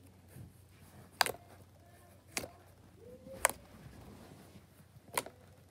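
Clicky slime being pressed and poked with the fingers, giving four sharp clicks spaced about a second apart.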